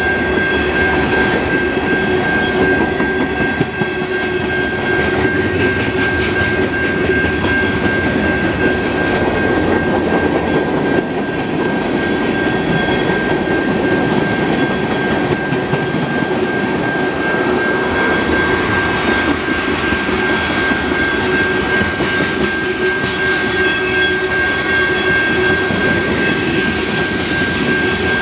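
Freight cars of a mixed freight train rolling past close by: covered hoppers, a refrigerator car and tank cars, their steel wheels running steadily on the rails. A steady high-pitched tone sounds over the rolling noise.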